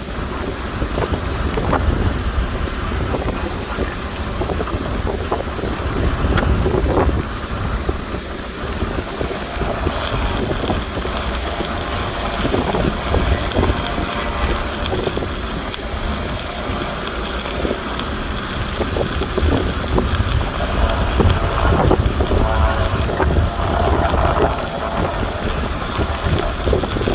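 Stick (shielded metal arc) welding arc crackling and sputtering steadily, over a low rumble. The high crackle grows stronger about ten seconds in.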